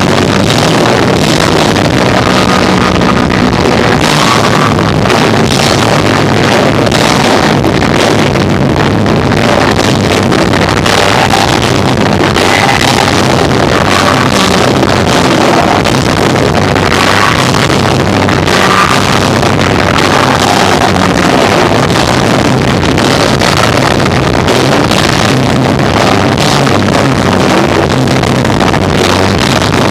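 Live rock band with guitar, bass and drums playing continuously, recorded at an overloaded level so the sound is a dense, distorted, muddy wash.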